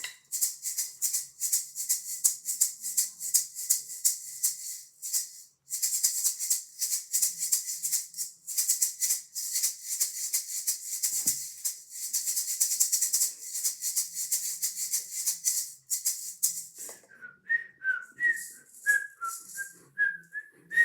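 Fast rhythmic shaking of a maraca-like rattle for most of the stretch, pausing briefly a few times. Near the end it gives way to a person whistling a short wavering tune.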